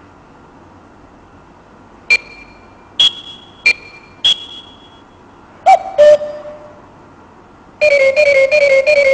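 Electronic beeps from a UFO-shaped LCD talking alarm clock: four short high beeps, then two louder, lower clicks. Near the end a quick tune of rapid beeping notes of changing pitch starts up.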